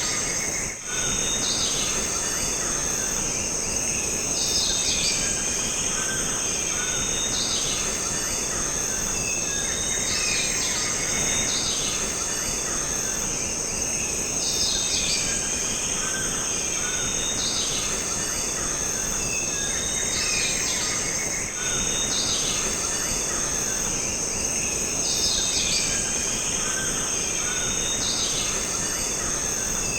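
Jungle ambience: a steady, high-pitched drone of insects, with bird calls recurring every few seconds.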